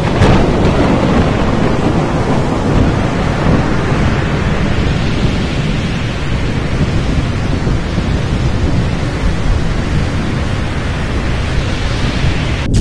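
Thunderstorm sound effect: loud, steady rumbling thunder with a rushing noise of heavy rain. It starts suddenly and breaks off abruptly near the end.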